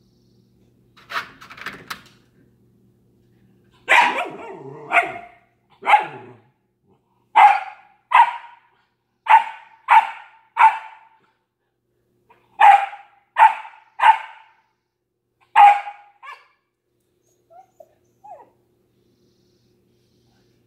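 Siberian husky barking: about a dozen short, sharp barks in loose groups, some close together, stopping a few seconds before the end, followed by a couple of faint short sounds.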